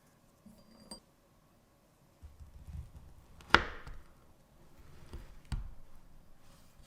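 Kitchen utensil knocks: one sharp knock with a brief ring about halfway through, and a smaller one about two seconds later, amid soft handling sounds.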